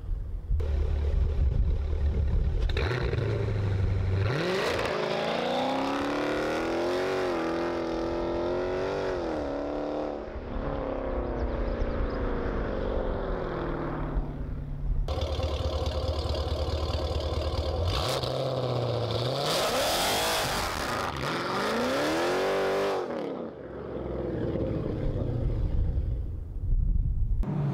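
Dodge Challenger Scat Pack's 392 HEMI V8 through its aftermarket exhaust, idling with a low rumble and then launching hard, its note rising sharply as it pulls away before falling off; this happens twice. Near the end the rear tyres lose traction on a launch.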